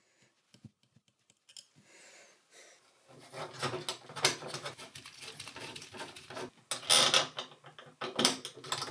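Gloved hands fitting a chrome bathtub overflow cover plate and its screws against the tub: scraping and rubbing with a few louder scuffs. Before that come a few faint clicks of a screw being handled in a pair of pliers.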